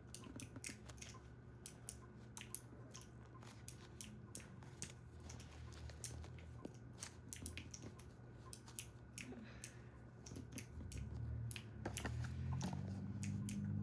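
Faint, irregular small clicks and crackles of a butter squishy being squeezed and handled in the hands. A low hum grows louder near the end.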